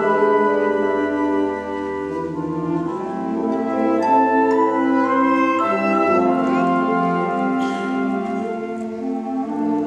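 A wind band playing a passage of held, overlapping chords, with brass such as French horns prominent over the woodwinds.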